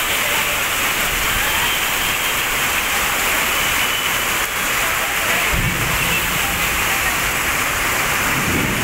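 Heavy rain pouring onto a waterlogged street, a steady dense hiss with no let-up. Short low rumbles come a little past the middle and again near the end.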